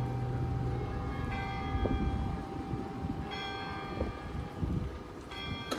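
A warning bell at a bascule bridge's lowered barrier, struck about once every two seconds, each stroke ringing on. A low machinery hum fades out in the first half second.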